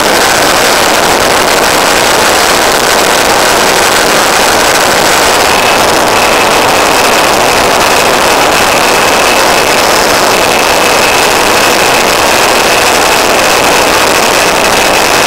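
Onboard audio from an EasyGlider electric RC glider in flight: a loud, even rush of airflow and transmission hiss, with a thin steady whine from the electric motor that steps up in pitch about six seconds in.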